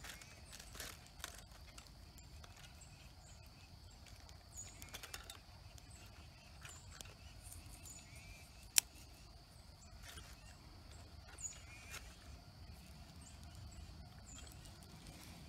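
Sticks handled and set in a small titanium wood-burning firebox as a fire is started, giving scattered light clicks and knocks of wood on wood and metal and one sharp click about nine seconds in. Faint short high chirps of birds recur in the background.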